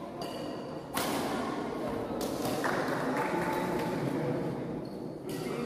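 Badminton rally in a large indoor hall: a few sharp racket hits on the shuttlecock, with players' and onlookers' voices echoing around the court.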